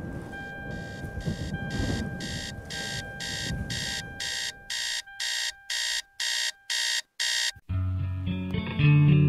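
Alarm clock beeping in even, high-pitched pulses about twice a second, over low music that fades away; the beeping stops suddenly near the end and guitar music starts.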